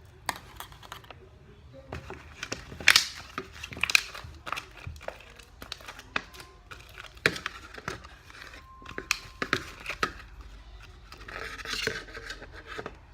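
Sticky slime being kneaded and pulled apart by hand, giving irregular wet clicks, crackles and tearing sounds, loudest about three and four seconds in.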